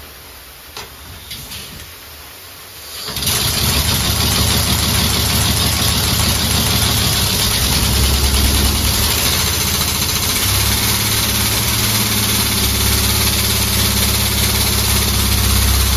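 Home-built compressed-air engine starting up about three seconds in and running steadily: a fast low mechanical beat under loud hissing air. Before it starts there is only a faint hiss and a few light clicks. It stops abruptly at the end.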